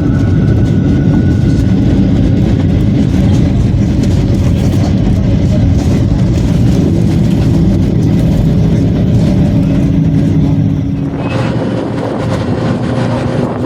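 A motor vehicle running steadily, a dense low rumble. The sound drops a little and changes about eleven seconds in.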